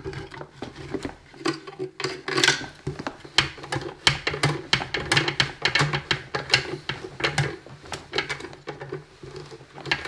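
Irregular clicks, light knocks and scrapes of metal parts being handled and fastened as a flexible metal intake pipe is fitted and tightened onto a sheet-metal heater base plate, over a steady low hum.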